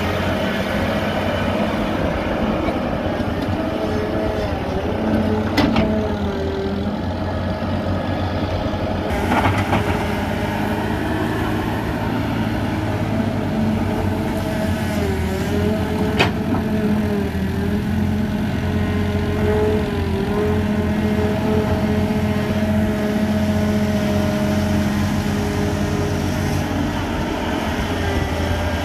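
Caterpillar 320B tracked excavator's diesel engine running under load while it digs, with a whine that rises and falls as the boom and bucket move. Two sharp clanks come through, about six and sixteen seconds in.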